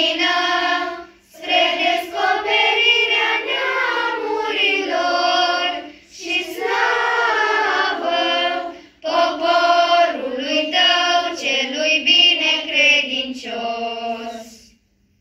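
Children's choir singing a slow Orthodox church chant in unison, in four phrases with short pauses between them.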